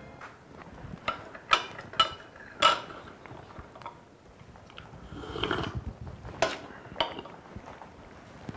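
Light clinks of china teacups, saucers and plates on a glass table during a meal, a handful of short sharp clicks spread out, with a softer, longer sip from a teacup about five seconds in.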